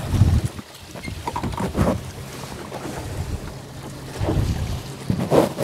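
Steady low hum of a boat's motor, with wind gusting across the microphone a few times.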